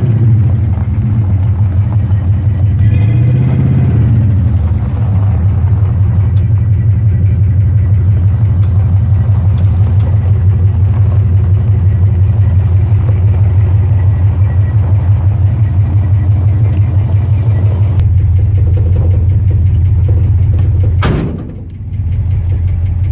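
1974 Ford F250 engine running steadily, revved briefly about three seconds in and then settling back. Near the end a sharp click comes with a short drop in level. It is running on freshly fitted battery terminals, which the owner takes to have been the cause of the no-start.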